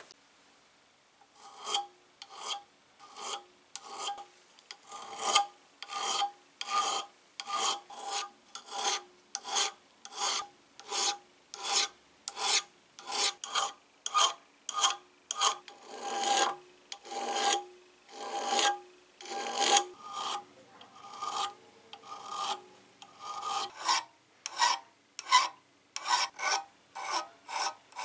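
Flat hand file rasping across the rusty steel frame of an old jeweler's (piercing) saw in steady back-and-forth strokes, about one and a half a second and quicker near the end, each stroke carrying a faint ringing tone. It starts about a second in.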